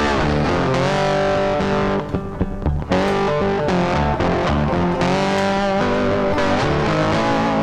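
Background music with electric guitar, with a short break about two seconds in.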